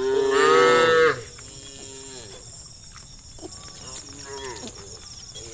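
Cattle mooing: one loud moo about a second long whose pitch drops at the end, followed by several fainter, shorter moos.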